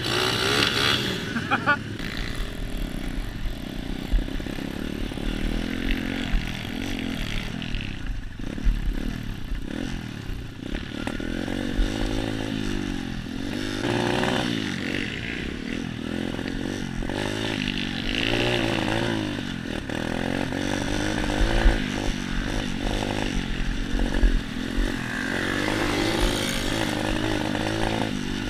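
A 125cc pit bike's single-cylinder engine being ridden off-road, its pitch rising and falling over and over as the throttle is opened and closed, with wind on the microphone and a few sharp knocks from the rough ground.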